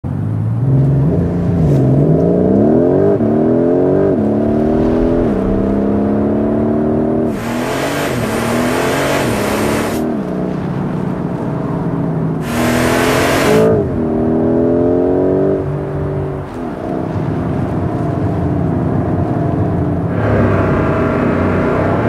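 Porsche 911 Carrera GTS hybrid's flat-six engine accelerating hard through the gears, its pitch climbing and dropping back at each quick upshift. Two bursts of loud rushing hiss come over it a few seconds apart, near the middle. Near the end the engine settles to a steadier, deeper note.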